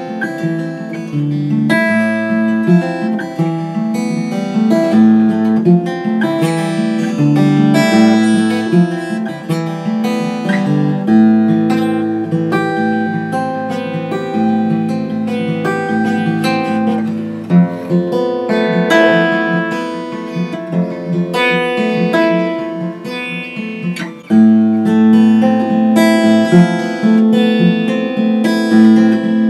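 Martin D-41 dreadnought acoustic guitar being played, with chords and single notes picked over a moving bass line. There is a brief drop in loudness near the end of the playing before it comes back fuller.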